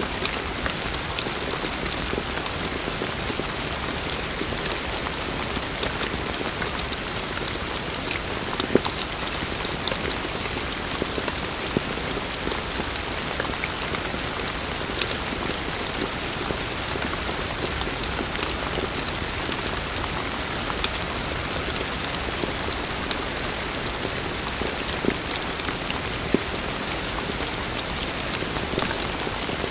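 Heavy rain falling steadily, with a dense patter of drops and a few louder single drop hits now and then.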